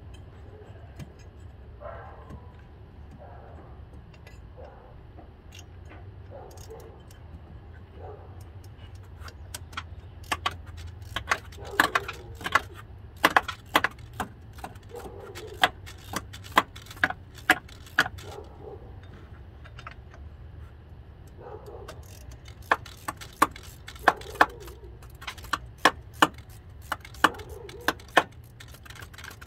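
Sharp metallic clicks and clinks of hand tools working on fittings deep in a car's engine bay. They come in irregular clusters starting about a third of the way in, pause briefly past the middle, then resume, over a steady low hum.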